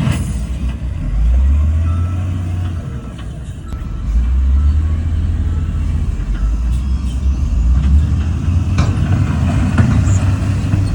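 Heavy diesel engine of earthmoving equipment working under load. It eases off about three seconds in and pulls up strongly again a second later, with a few sharp knocks.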